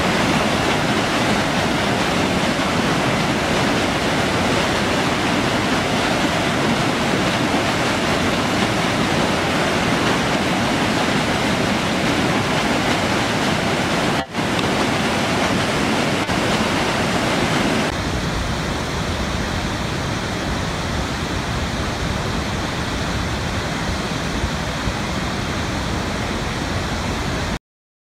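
Waterfall: steady loud rush of falling water. It drops out for a moment about fourteen seconds in, then changes about eighteen seconds in to a lower rush with less hiss.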